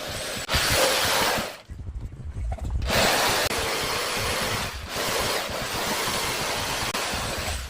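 Power tool working wood, running in three spells of one to two and a half seconds with short pauses between.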